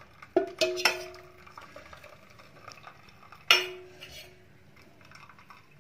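Steel bowl knocked and clinking as the curdled milk is emptied from it onto a straining cloth: three quick ringing knocks about half a second in, then one louder ringing clang about three and a half seconds in.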